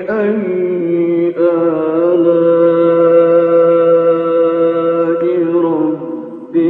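Solo male Quran recitation in a melodic chanted style, the reciter drawing out one vowel in a long, steady held note through most of the stretch. Near the end the voice dips briefly before the next phrase begins.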